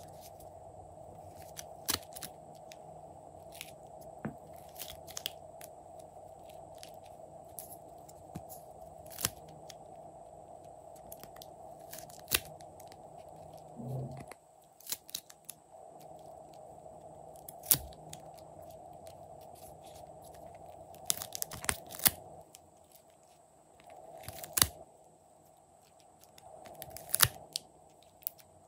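Scattered sharp clicks and crunches as a plastic mold tray is handled and molded clay pieces are pressed out of it onto slime, a few at a time with a quick cluster past the middle. A steady hum runs underneath and drops out briefly twice.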